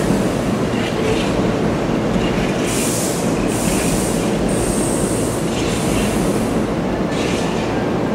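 Hankyu 8000 series electric train rolling slowly over curved track and points, with a steady rumble. Its steel wheels squeal in short high bursts several times on the curve.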